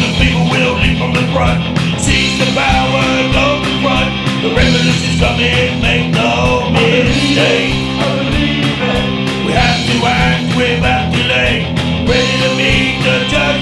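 Punk rock song played by a band: guitars over a steady drum beat.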